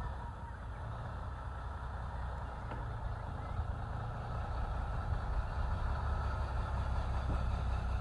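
Engines of stopped road vehicles idling, a steady low rumble.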